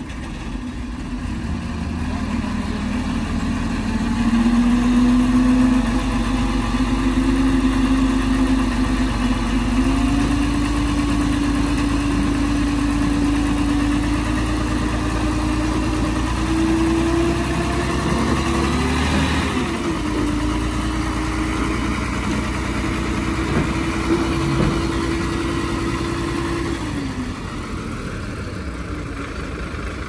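Heavy diesel engine of earthmoving equipment running hard under load, its note climbing slowly over the first twenty seconds. About two-thirds of the way through the deep rumble drops away and the note dips, and near the end the engine eases off.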